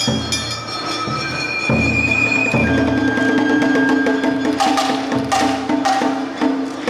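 Awa odori street-band music: high, long-held flute notes over a steady drone, then a run of sharp percussion strikes, about two or three a second, from about four and a half seconds in.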